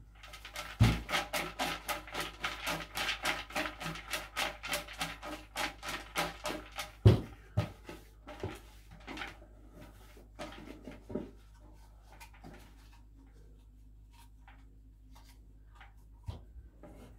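Raffle tickets swishing and rattling inside a plastic bucket being shaken, about five shakes a second, with a couple of heavier thumps of the bucket. The shaking slows and stops after about ten seconds, leaving only a few faint rustles and one more thump near the end.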